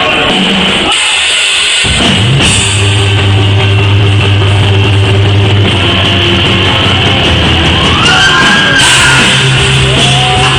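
Live rock band playing loud and heavy: drum kit with cymbals and electric guitar. The full low end sets in about two seconds in, and a rising guitar slide comes near the end.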